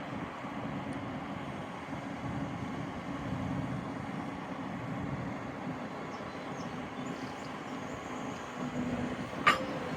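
Diesel engine of a Hyundai HX210AL tracked excavator running steadily, with one sharp click or knock near the end.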